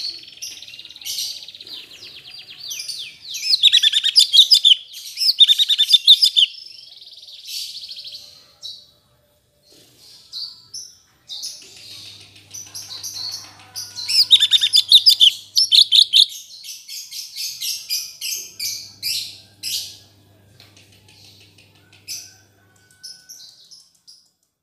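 Cucak cungkok singing in phrases of rapid chirps and trills broken by short pauses, loudest in two bursts, a few seconds in and again midway; a bird still finding its song after the moult.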